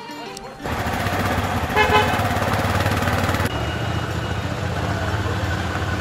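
Motor vehicle running steadily, with a short horn toot about two seconds in.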